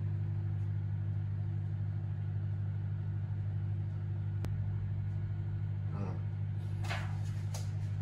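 A steady, low machine hum runs throughout, like a running kitchen appliance or fan. A few brief scraping noises come near the end.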